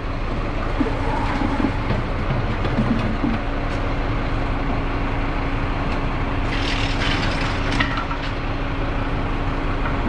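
A vehicle engine idling with a steady low hum, a steady tone settling into it a few seconds in. A brief hissing rustle comes about six and a half seconds in.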